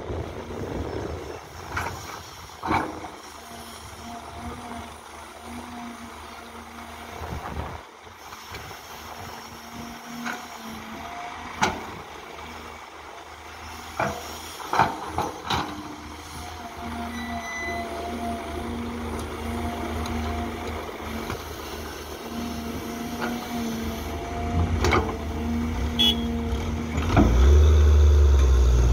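Caterpillar hydraulic excavator at work, its diesel engine running with a steady hum and a held hydraulic whine. Occasional sharp knocks come from the bucket. Near the end the engine rises to a much louder low rumble as the filled bucket is lifted and swung.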